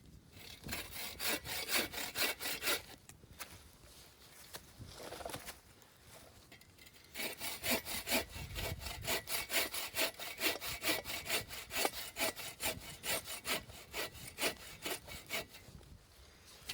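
Hand saw cutting through wood in back-and-forth strokes, about three a second: a short bout at the start, a pause, then a longer steady run from about seven seconds in.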